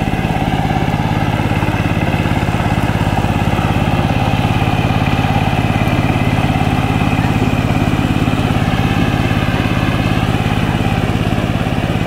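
Saifeng 12 hp single-cylinder diesel engine of a two-wheel power tiller running steadily under load while it ploughs through wet paddy mud on rubber-tyred wheels.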